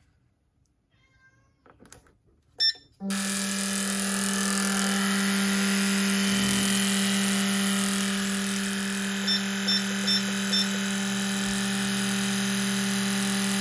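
Four 230 cc fuel injectors firing in an Autool CT150 injector cleaner and tester's high-speed test: a loud, steady buzz that starts suddenly about three seconds in, just after a click. Midway through, the tester gives four short beeps.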